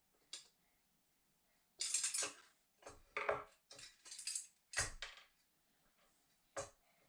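Metal headlight parts clinking and rattling by hand as the assembly is fitted back together, in about six short clatters with one heavier knock around the middle.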